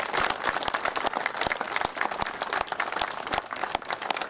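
Crowd applauding: many hands clapping, dense and irregular throughout.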